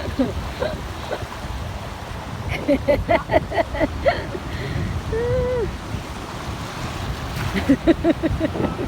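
Steady rush of wind and surf on the microphone, with a person laughing in two quick runs of short bursts and a drawn-out vocal cry between them.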